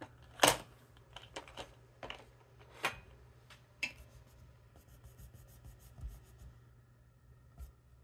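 Eraser rubbing on sketch paper, in a few separate strokes and then a quick run of light, even back-and-forth strokes. There is a sharp knock about half a second in, as a pencil is set down on the pad.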